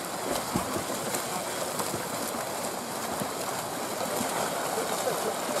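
Water polo players swimming hard across a pool, a steady wash of splashing from many arms and kicks.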